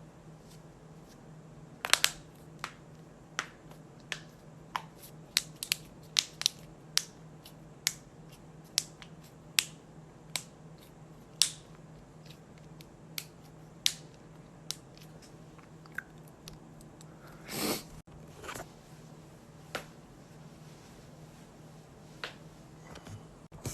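Joints cracking during chiropractic adjustments: a long, irregular run of sharp pops and clicks, some in quick clusters, over a steady low hum. A longer crunching sound comes about two-thirds of the way through.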